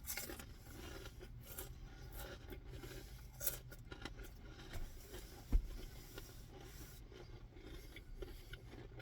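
Close-miked eating sounds: quiet chewing with scattered clicks and scrapes of a utensil against a food container, and a dull thump about five and a half seconds in.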